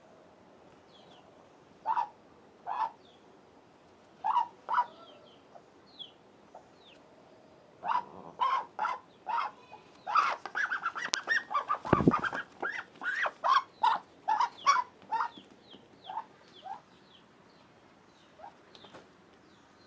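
Muscovy ducks mating: short, loud, repeated calls that come in pairs at first, then fast and dense in the middle. One hard scuffling thump about twelve seconds in.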